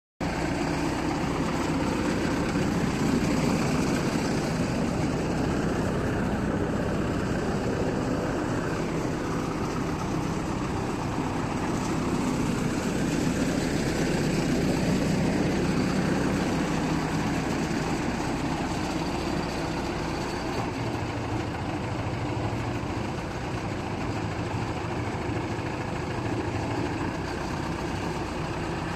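The diesel engine of an FY300 water well drilling rig (a 92 kW Yuchai) running steadily at a fairly even speed.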